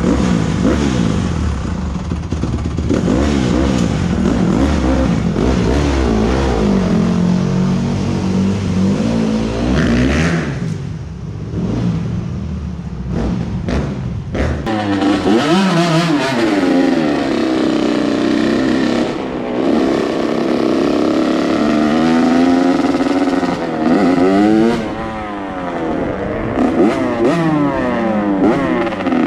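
Dirt bike engine running under way, revving up and down again and again as it is ridden.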